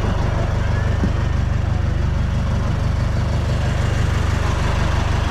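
Outrigger fishing boat's engine running steadily at a constant speed, loud and low-pitched with a fast, even pulse.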